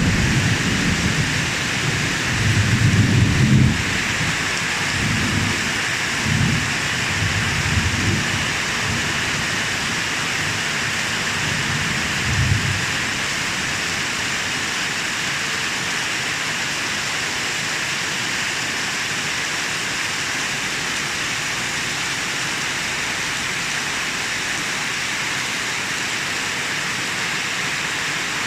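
Heavy rain pouring steadily, with low rolls of thunder rumbling in swells over the first dozen seconds before dying away, leaving only the even hiss of the downpour.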